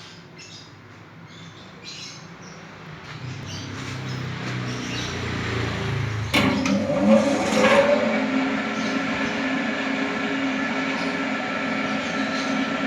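Stainless-steel spinner machine running up to speed: a whir that grows louder over the first several seconds, a sharp clack about six seconds in with a brief gliding squeal, then a steady machine hum with several steady tones.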